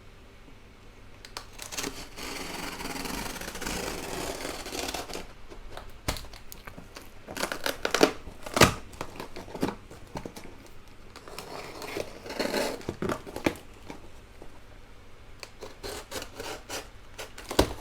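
A package being opened by hand: packaging tearing and crinkling for a few seconds, then scattered knocks and taps as the box and its foam packing are handled, with two louder knocks about halfway through.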